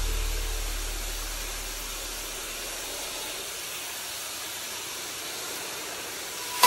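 Pressure washer jet spraying water against wooden boards, blasting off dark grime: a steady hiss.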